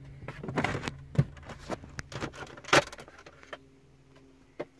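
Plastic clicks, knocks and rattling as the Toyota Prius's top dashboard cover is pried up with a plastic trim tool and its clips pop loose, the loudest snap a little under three seconds in. It goes quieter over the last second or so.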